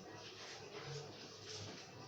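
Faint voices in the background over low room noise.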